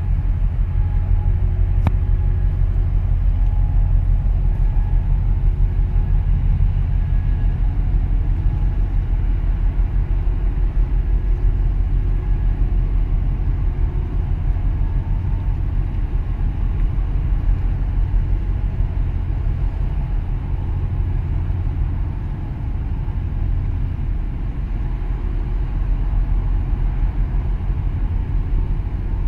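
Steady low rumble of wind buffeting the microphone, with a faint engine hum from the passing container ship and its tug underneath.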